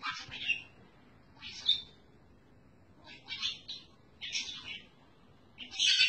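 A pet budgerigar chattering in short, scratchy chirps and squawks: five brief bursts, each about a second or so apart.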